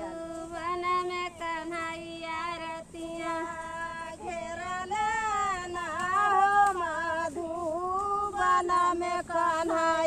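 A high voice singing a melody, holding notes and bending the pitch with ornaments, with no clear instruments underneath.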